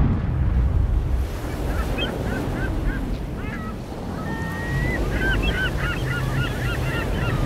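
A flock of birds calling in many short, hooked squawks that become thicker after about two seconds, with one longer level call about four seconds in, over a steady low rumble.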